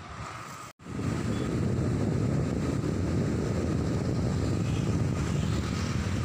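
Steady low rumbling outdoor noise, interrupted by a brief silent gap just under a second in.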